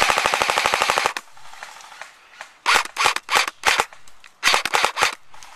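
JG G3 airsoft electric rifle firing a full-auto burst of about a second, a rapid even stream of sharp shots, followed by two strings of quick single shots.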